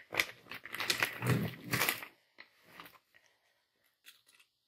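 Clear plastic bags of dried fish crinkling and rustling as a hand handles them for about two seconds, then only a few faint rustles.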